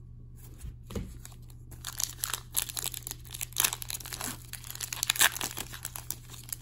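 Foil wrapper of an Upper Deck hockey card pack crinkling as it is handled and torn open, after a soft knock about a second in as a card is set down on the table.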